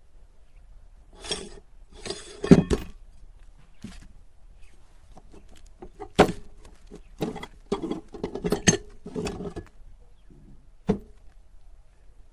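Hard objects clinking and clattering in irregular bursts, with a few single sharp clicks, the loudest about two and a half seconds in.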